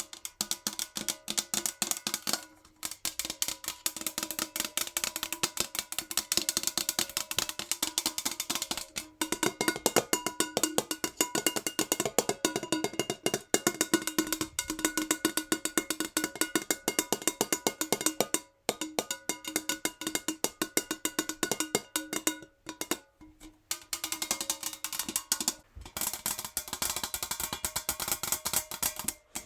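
Fingernails tapping very fast on a metal jar, a dense rapid patter of light clicks with a metallic ring. The tapping stops briefly a few times, near 3, 9, 18 and 23 seconds in.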